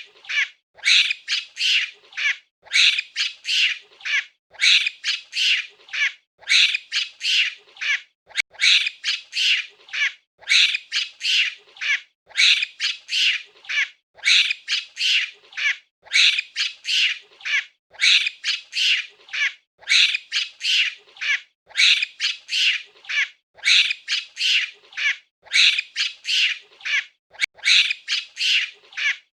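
Monkey calling: clusters of short, shrill calls repeated about every two seconds in a steady, even pattern.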